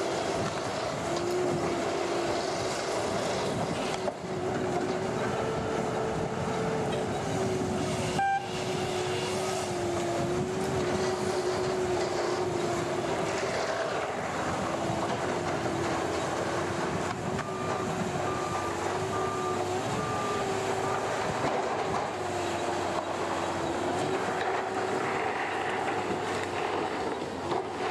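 Skagit tower yarder running with a steady mechanical whine that steps up and down in pitch as it works. There is a sharp click about eight seconds in, and a string of about five short beeps a little past halfway.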